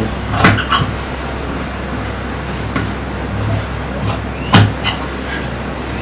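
Tailor's shears cutting through folded fabric on a table: sharp snips of the blades closing, a strong one about half a second in and another about four and a half seconds in, with a few fainter ones between, over a steady low hum.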